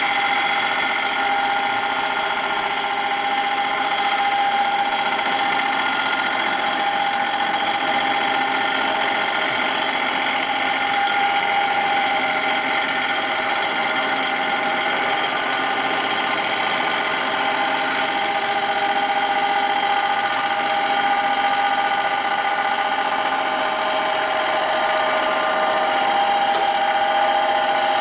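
Metal-cutting machine tool running a light cut across a metal engine surface: a steady whine whose pitch wavers slightly.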